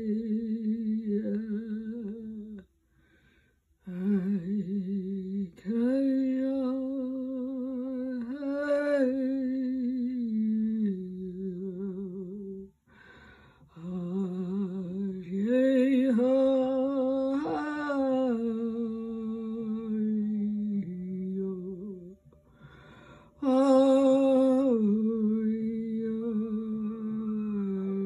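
A woman's voice humming wordless, chant-like held notes, each sustained for several seconds with a slight waver. It stops briefly about three times for breath.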